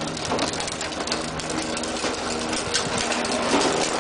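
Hard plastic wheels of a ride-on toy trike rolling over a concrete driveway: a steady grinding rumble.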